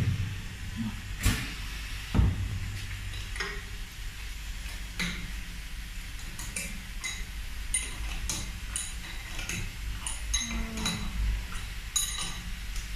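Metal clinking and tapping as a wrench and tools work on the steel head of a cup heat-transfer press during adjustment: a few heavier knocks in the first couple of seconds, then many small scattered clicks, over a steady low hum.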